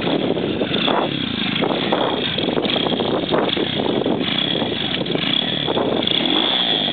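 Stomp monkey bike's small single-cylinder engine running, its pitch rising and falling several times as the throttle is opened and closed.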